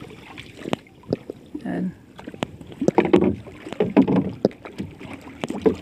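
Irregular knocks and bumps on a wooden outrigger canoe as people shift about and step on its hull, with water sloshing against the boat.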